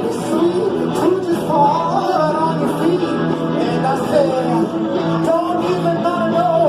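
Live rock band playing a song: a voice singing over guitar, bass and drums keeping a steady beat.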